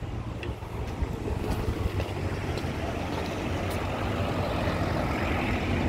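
Wind rumbling on a handheld phone microphone over street traffic, with a car's noise swelling near the end.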